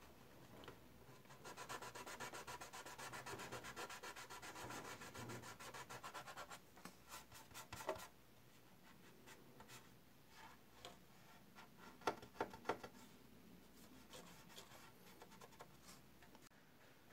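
Hand sanding of a plastic model aircraft's fuselage: a small abrasive worked in rapid back-and-forth strokes for several seconds, smoothing the surface ahead of priming. After that come quieter, scattered rubs and a few light clicks and taps as the part is handled.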